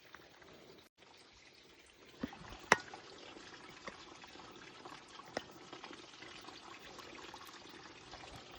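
Water pouring and trickling steadily from a solar-powered pump that draws from an old well, with a few sharp knocks along the way.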